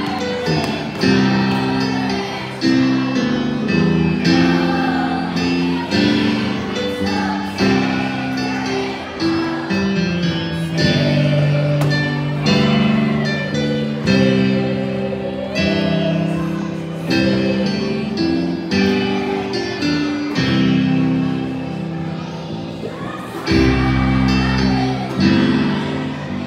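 A group of children singing a song together to a strummed guitar accompaniment, echoing in a large gym. A low rumble comes in near the end.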